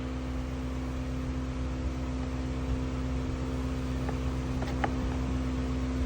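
Steady mechanical hum with a constant low tone over a soft hiss, with a few faint light clicks about four to five seconds in.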